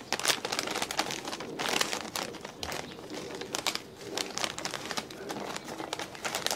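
Plastic Cheetos Puffs bag crinkling as hands twist and fold it, a steady run of sharp crackles that gets louder in short spells.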